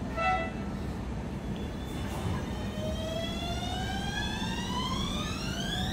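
Modern tram's traction motors and inverter whining as the tram starts off. The whine climbs steadily in pitch from about three seconds in as it accelerates, over a low running rumble. A short beep sounds just after the start.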